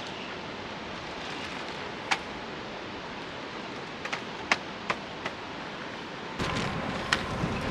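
Steady outdoor background noise with a handful of sharp clicks and knocks from camping gear being handled. About six seconds in, the background suddenly gets louder and deeper.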